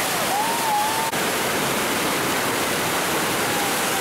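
River white-water rapids: a steady rush of churning water, with a short call over it in the first second.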